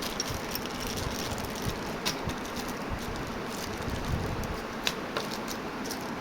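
Small clicks and taps of a sports camera and its packaging being handled, scattered irregularly over a steady background hiss.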